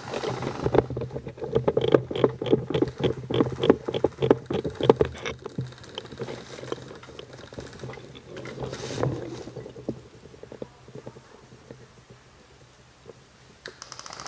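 Quick footsteps with gear and rifle rattling, about four knocks a second for around five seconds, then a shorter spell of movement near the middle before it goes quieter.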